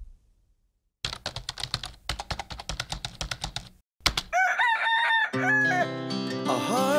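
A run of rapid clicking like keyboard typing for about three seconds, then a rooster crowing once, with guitar music coming in under the crow.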